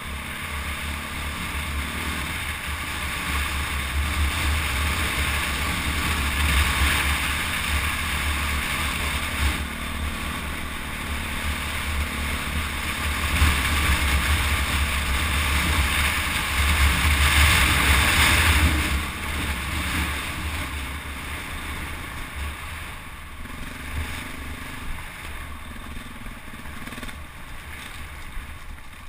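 KTM 400 EXC's single-cylinder four-stroke engine running as the bike rides along, louder through the middle and easing off over the last third.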